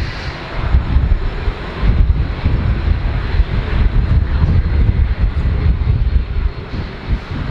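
Jet noise from the Boeing E-4B's four General Electric CF6-50E2 turbofans, a steady roar, with gusting wind buffeting the microphone.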